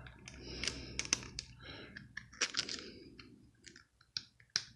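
Needle-nose pliers gripping the nut on a spinning reel's rotor shaft, making irregular small metal clicks and scrapes as he tries to unscrew it.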